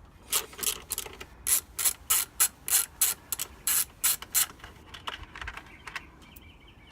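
Ratchet clicking in short, quick strokes, a few clicks a second, as the screws holding a BMW 328i's plastic engine cover are backed out; the clicking stops about four and a half seconds in.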